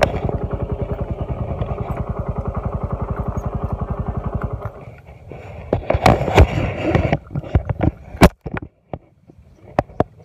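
Motorcycle engine running with a steady, even beat, then cut off about four and a half seconds in. After it come irregular handling knocks and clatter, with one sharp click near the end.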